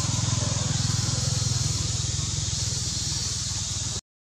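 An engine running steadily, with a fast even low pulse, over a steady high hiss. The sound cuts off suddenly near the end.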